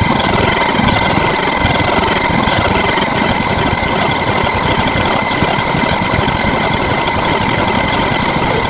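Loud, steady engine-like rumble with a constant high-pitched whine over it.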